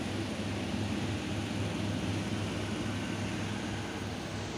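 A steady machine hum and hiss with a regular low throb.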